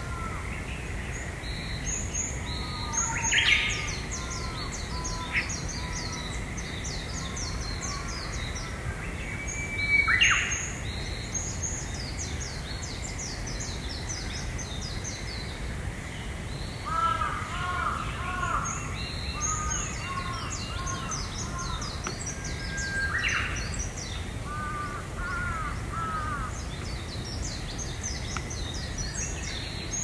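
Several wild birds singing in a forest at dawn: repeated bouts of high, rapid trilling song and lower warbled phrases, with a few louder, sharp calls, three of them standing out about 3, 10 and 23 seconds in. A steady low rumble runs underneath.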